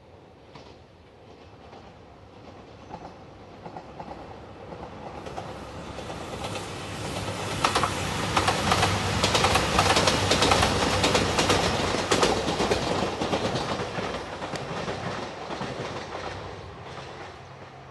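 Three-car diesel limited express train (JR Shikoku Nanpu, Anpanman livery) approaching and passing close by. Its running noise builds steadily, with a quick clickety-clack of wheels over rail joints loudest about halfway through, then fades as it moves away.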